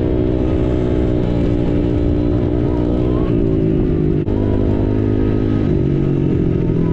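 Dirt bike engine running steadily under way, heard close up from the bike carrying the camera. Its pitch steps about three seconds in and again near six seconds.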